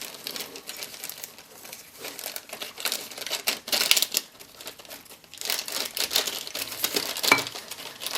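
Packaging crinkling and rustling as parts of a CNC router kit are handled and unpacked, in irregular bursts of crackle that come thickest in the middle and the second half.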